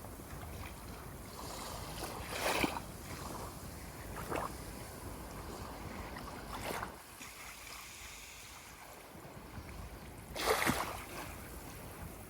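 Ocean waves washing and splashing against the shore over a steady low rush, with four short splashes, the loudest about two and a half and ten and a half seconds in.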